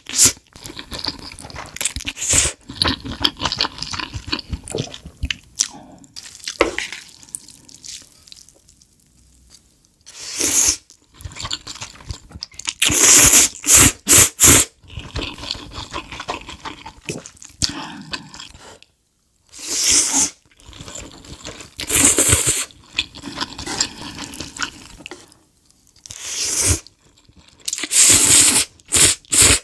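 Instant stir-fried noodles being eaten close to the microphone: loud bursts of slurping a handful of times, with quieter wet chewing between and a few brief pauses.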